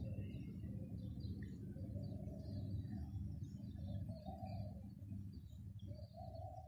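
Small birds chirping and a dove cooing several times in the second half, over a steady low rumble.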